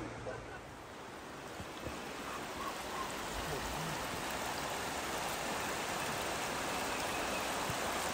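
Shallow, rocky stream flowing over stones: a steady, even wash of water noise that builds slightly over the first few seconds and then holds.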